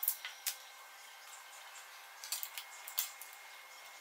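Light crinkles and taps of a rolled paper tube being handled and stuck with cellophane tape, in two short clusters: one right at the start and another about two and a half seconds in.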